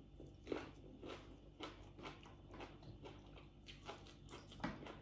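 Close-up chewing of a mouthful of food: quiet, irregular mouth clicks and crunches, about three a second.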